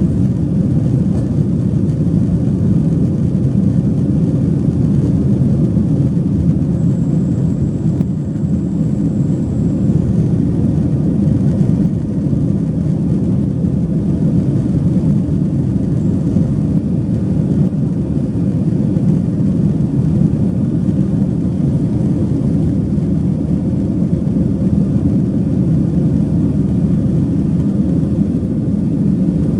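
Boeing 737-800 airliner heard from inside the cabin: a steady, loud rumble of its CFM56-7B jet engines and rushing air.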